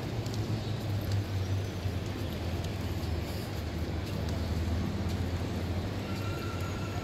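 Busy city-square ambience: a steady low rumble of distant traffic under a general outdoor hubbub, with a few faint clicks.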